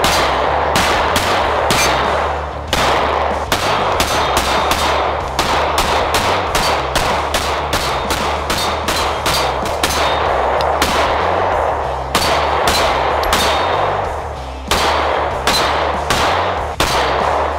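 IWI Masada 9mm striker-fired pistol being fired in rapid strings of shots, several a second, with brief pauses between strings.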